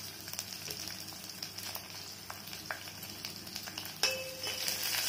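Chopped onions sizzling in hot oil with dried red chillies and tempering seeds in a stainless steel pot, the start of a tadka. About four seconds in, the pot is stirred and the sizzling grows louder, with metal on the steel ringing.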